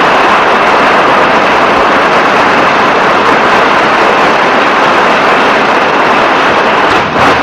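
A large audience applauding, a dense, steady clapping that breaks off about seven seconds in.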